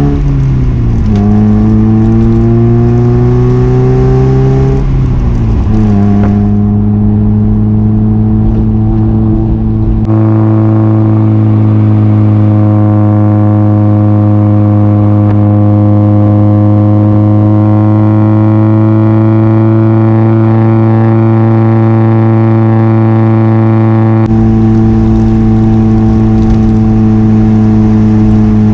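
1992 Mazda Miata's 1.6-litre four-cylinder engine through an ISR Performance Circuit Spec exhaust and test pipe, pulling up through the gears with two upshifts in the first few seconds, then cruising at a steady engine speed.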